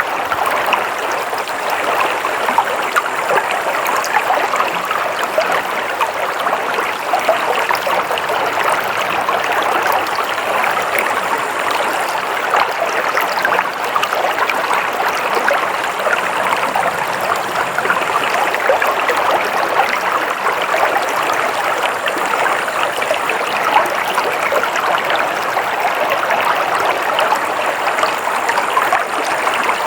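Steady flowing water of a stream running over stones, with fine splashing and trickling.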